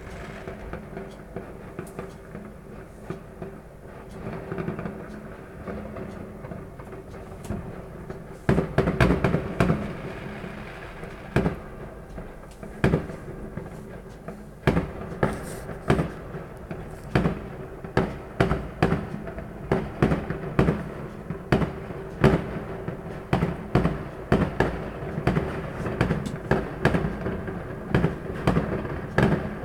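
Fireworks going off: sharp bangs, only a few at first, then from about eight seconds in coming thick and fast, about one or more a second, with bursts of crackling.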